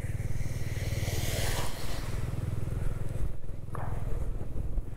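Bajaj Dominar 400's single-cylinder engine running steadily at riding speed, under wind and wet-road noise on the camera's microphone. The rush of noise swells for about a second, starting about a second in.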